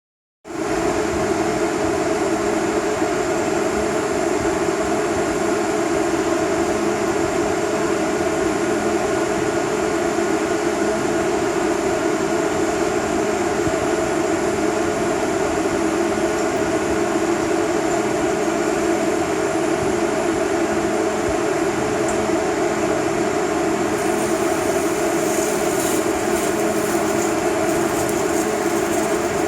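Automatic circumferential welding machine running with a steady, even drone and hiss; about 24 seconds in, a crackle joins in the high range.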